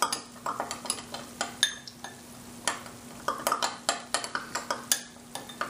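Spoon stirring a red chilli chutney in a small glass, clinking and scraping against the glass in quick, irregular taps.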